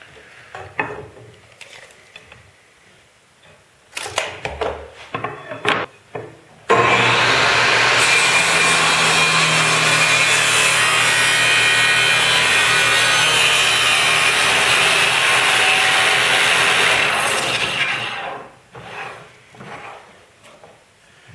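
Table saw with its blade tilted, ripping a bevel along a narrow wooden strip: it starts suddenly about a third of the way in, runs steadily for about ten seconds, then winds down. Before the cut there are a few knocks and clicks of wood being handled.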